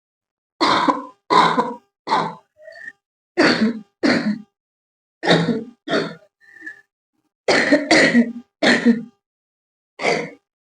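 A woman coughing on purpose, about eleven short coughs in ones, twos and threes, with a few faint throaty sounds between them. Her throat is already slightly hoarse.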